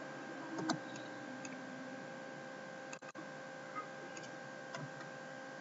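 A few faint, scattered computer-mouse clicks over a steady low electrical hum.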